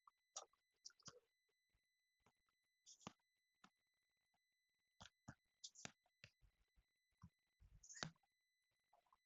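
Scattered knocks and clunks of a motorcycle fuel tank being handled and refitted, the loudest a heavier thump about eight seconds in, over a faint, steady, high-pitched electronic whine.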